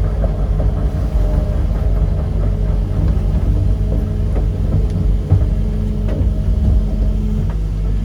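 Excavator's diesel engine running steadily under load as its hydraulic arm pulls on the dock, with a few faint knocks.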